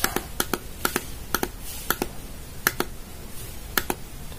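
Repeated clicks of the plastic MEM push-button on a Sinocare BA-823 digital blood pressure monitor, pressed about twice a second to step the date's day number forward.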